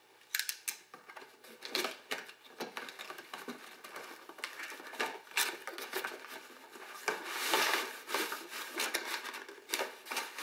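A cardboard toy box being opened by hand and its cardboard insert tray slid out. Cardboard scrapes and rustles with scattered clicks and taps. The handling is loudest about seven to eight and a half seconds in.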